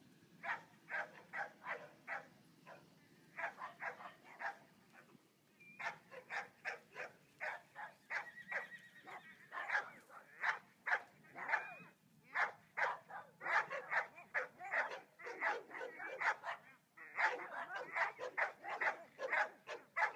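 A dog barking rapidly and repeatedly, about three or four barks a second, in long runs broken by short pauses.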